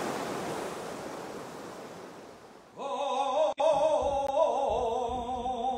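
A wash of noise like surf fades away. About three seconds in, a voice starts singing a long, held melodic line with a wavering vibrato, with a momentary dropout in the sound just after it begins.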